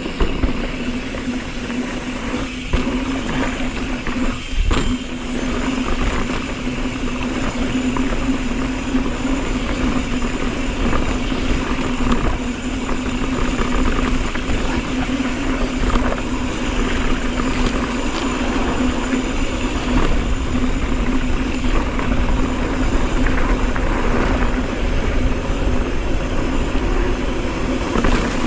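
Mountain bike rolling fast down a dirt fire road: steady tyre noise and wind on the camera mic, with a steady hum underneath. A couple of sharp knocks from bumps come about three and five seconds in.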